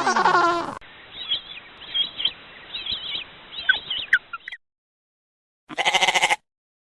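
Three short animal calls, one after another, with silence between them: a falling call that ends just under a second in, then about three and a half seconds of birds chirping over a hiss, then a brief rapid, trembling call near the end.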